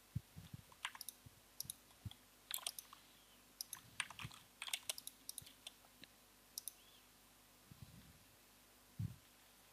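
Computer mouse clicks and keyboard key taps, faint, irregular and scattered, with a few soft low thumps among them.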